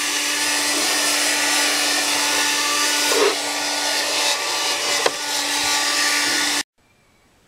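Handheld hair dryer running steadily, blowing warm air over wet epoxy and carbon fibre to speed the cure: a rush of air with a steady hum under it. It cuts off abruptly near the end.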